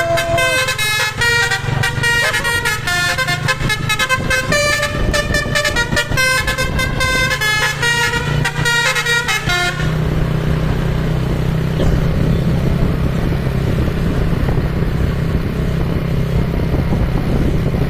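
Indonesian 'telolet' bus horn of the Basuri type playing a fast run of melodic tooting notes for about ten seconds, then it stops. A steady low engine and road rumble runs underneath and carries on after the horn.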